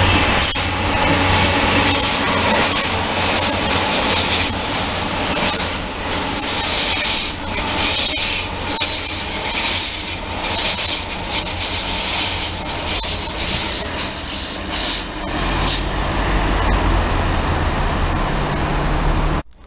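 Train running through a station, its wheels squealing against the rails with a rapid, irregular clatter of wheels over rail joints. A low hum comes up in the last few seconds before the sound cuts off abruptly.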